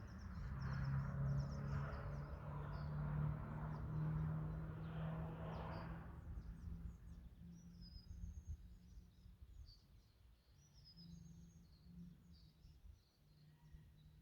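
Mazda6 2.0 Skyactiv-G four-cylinder engine with a modified intake, its steady low hum fading away over the first six seconds and lingering faintly after, with birds chirping throughout and some wind rumble.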